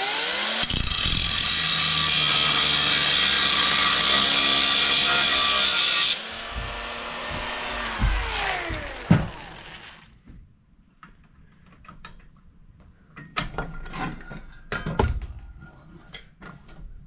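Cordless power tool, running on a low battery, spins up and cuts through steel plate in a loud, harsh rush of noise. About six seconds in it drops off sharply and the motor winds down with falling pitch. A few knocks and clatters of metal follow.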